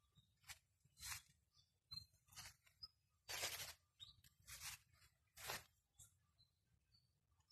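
Faint footsteps crunching and rustling through dry leaf litter and grass: about seven irregular crunches, the longest and loudest a little past the middle.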